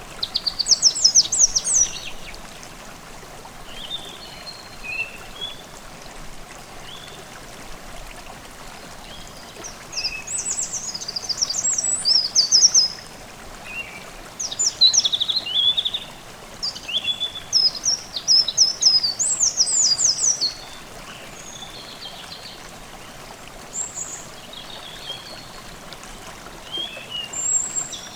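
Songbirds singing in bursts of rapid high chirping phrases, loudest about a second in and again through the middle, over the steady rush of a babbling forest stream.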